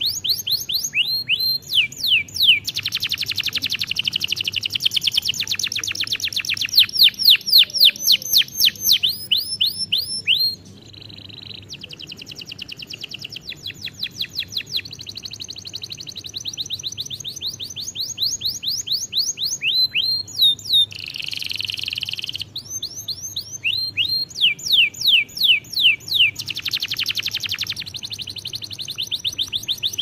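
Domestic canary singing: fast trills of repeated, quickly falling whistled notes, switching from one trill to the next every few seconds. It breaks off briefly about a third of the way through, and a harsh buzzy note comes about two-thirds through.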